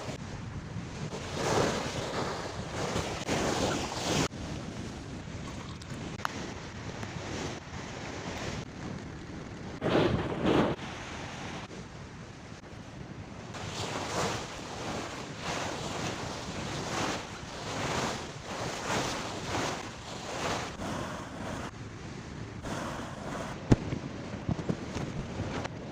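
Sea waves washing and surging onto the shore in repeated swells, with wind buffeting the microphone. A single sharp click sounds near the end.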